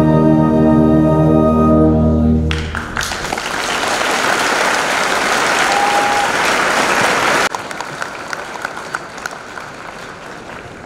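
Music ends on a long held chord, then an audience applauds loudly for about five seconds. The applause cuts off abruptly, leaving softer crowd noise with scattered claps.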